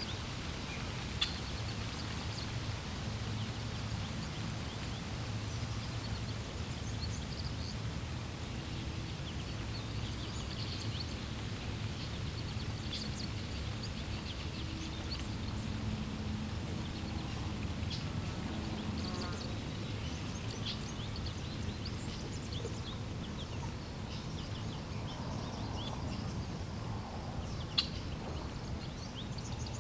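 Steady rush of flowing water with birds chirping on and off above it. Two sharp clicks stand out, one about a second in and one near the end.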